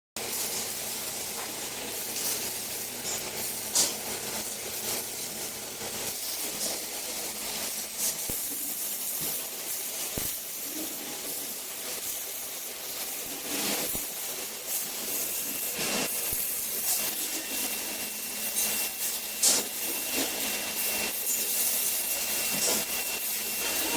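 Robotic MIG welding arc: a steady crackling hiss with scattered sharp pops, joined about two-thirds of the way in by a thin steady high tone.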